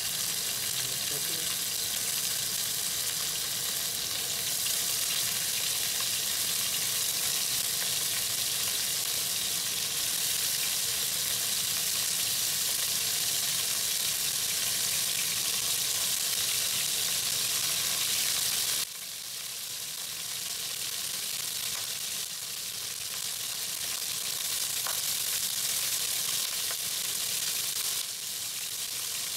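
Chunks of meat searing in a hot pan, a steady sizzle as they are browned to take on colour. The level drops suddenly about 19 seconds in and again near the end.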